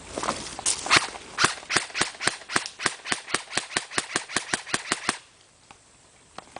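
Airsoft gun firing a rapid string of sharp shots, about five a second, which stops about five seconds in.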